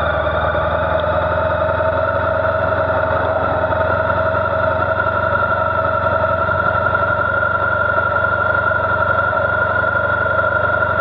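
Motorcycle engine idling steadily with the bike standing still.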